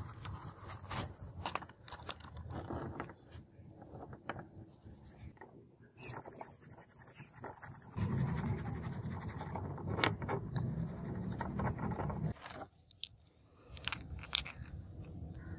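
Steel wool scrubbing a small rough metal casting by hand: irregular scratchy rubbing with light clicks and taps of metal being handled. The rubbing is denser and louder from about eight seconds in until about twelve.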